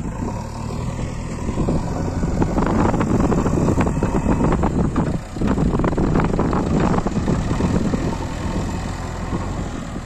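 A JCB 3DX backhoe loader's diesel engine revs hard as the front bucket lifts a load of soil over a tractor trolley. It dips briefly about five seconds in and eases off near the end.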